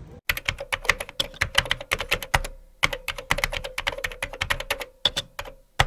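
IBM Selectric II electric typewriter being typed on in quick runs, its typeball striking several times a second, with a couple of short pauses. A steady motor hum runs under the strikes.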